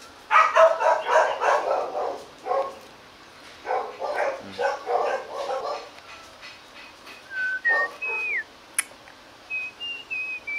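Dogs making quick rhythmic vocal sounds, about six a second, in runs lasting a second or two. In the second half come several short whistled notes, one of them falling.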